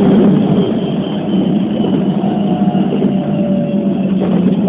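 Keikyu New 1000 series electric train running at speed, heard from inside the car: a steady low rumble of wheels on the rails with faint whining tones from the traction motors, and a single click near the end.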